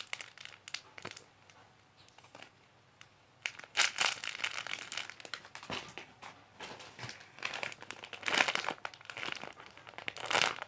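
Plastic wrapper of a squishy toy crinkling in several bursts as it is handled and opened, after a quieter first few seconds.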